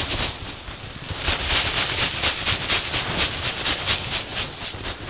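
Dry soybeans being shaken out of a sack into a feed trough: a rhythmic rattling hiss of about four shakes a second, starting about a second in.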